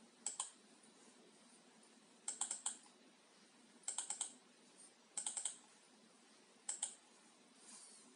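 Keys clicking on a computer keyboard, in five short bursts of two to four keystrokes each, over a low room hiss.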